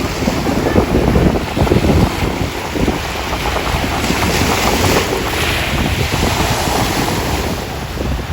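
Black Sea waves washing ashore, with wind buffeting the microphone throughout and a hiss of surf swelling about halfway through.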